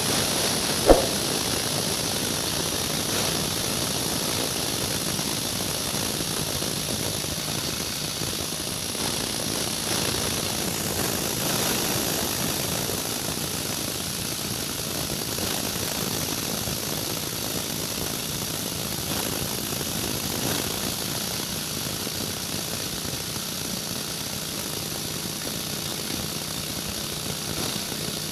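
Multifunction grass and organic-waste chopper machine running steadily with a steady mechanical hum and a high hiss. There is one sharp click about a second in.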